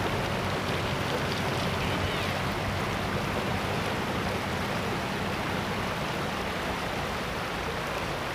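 Shallow river flowing fast over a stony, gravelly bed: a steady, even rushing of water.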